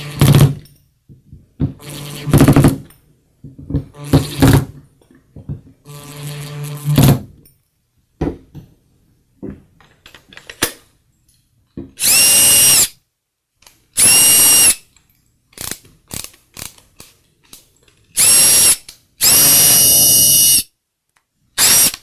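A cordless drill/driver runs in four short bursts, driving screws back into the plastic housing of a Makita BDF452 drill/driver. Then the reassembled Makita BDF452 cordless drill/driver is test-run in about five short runs, each with a steady motor whine, and a few light clicks come between runs.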